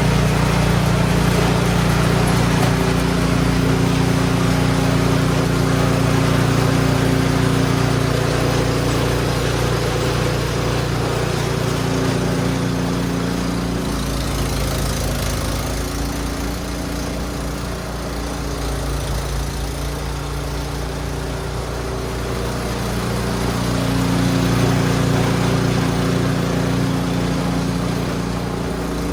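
Husqvarna gas snow blower engine running steadily. Its pitch drops about halfway through and picks up again near the end.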